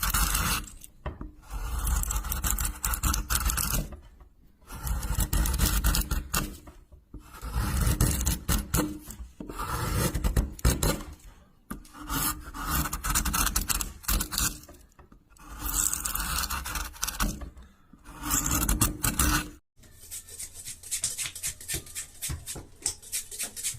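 Rough scraping strokes repeated one after another, each lasting a second or two with short pauses between. Near the end they give way to a quieter run of quick crackling clicks.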